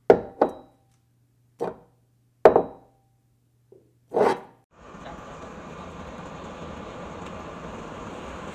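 A series of five sharp strikes, each with a brief ring, irregularly spaced over the first four seconds, then a steady even noise from about five seconds in.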